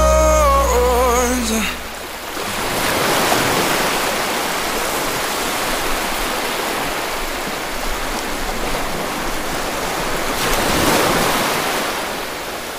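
A pop song with singing ends in the first two seconds. Then ocean surf washes ashore as a steady rushing, swelling a few seconds in and again near the end.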